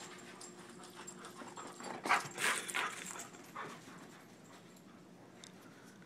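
German shorthaired pointer panting in quick rhythmic breaths, loudest about two to three seconds in, then dying away.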